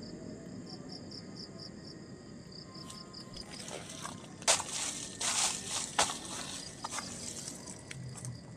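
Insects chirping in a steady pulsing rhythm. About halfway through come a few short scratching and rustling noises from hands lighting a mosquito coil.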